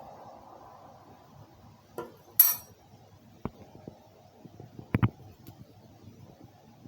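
A spoon and a glass dish clinking together as they are handled: a few separate knocks, the brightest and loudest clink about two and a half seconds in, and a duller thud about five seconds in.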